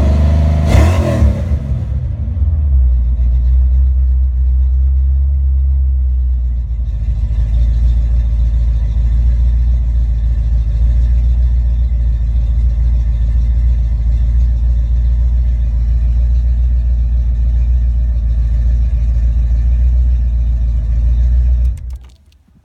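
Ford Mustang 5.0 V8 dropping back from a rev, about two seconds in, to a steady, even idle, then stopping suddenly near the end. The smooth idle is the check that the rebuilt A9L mass-air computer runs the engine without stumbles.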